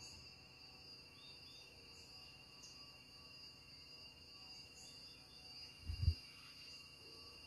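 Faint, steady insect chorus of crickets, two continuous high trilling tones with a few faint chirps over them. A brief low thump comes about six seconds in.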